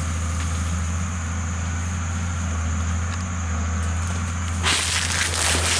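A steady low hum, then, about five seconds in, a loud crackling rush of leaves and branches snapping as the roped wild Asian elephant tears at the undergrowth.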